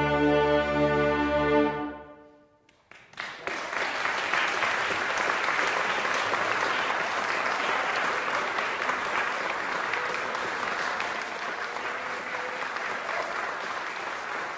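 A concert band of brass and woodwinds holds its final chord and cuts it off about two seconds in, the hall ringing briefly after it. About a second later the audience breaks into steady applause.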